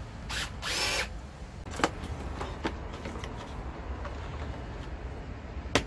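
Cordless drill-driver run in two short bursts, unscrewing the muffler bolts from a two-stroke brush cutter engine, followed by a few light clicks and a sharp click of metal parts near the end.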